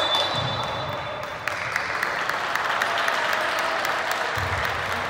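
A steady, high referee's whistle blown for about a second and a half, followed by spectators applauding at a basketball game.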